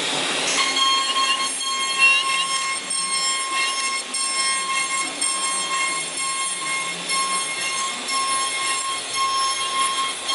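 CNC router spindle running with a steady high-pitched whine while its bit carves a relief pattern into a wooden board, with brief small chirps as the cutter bites.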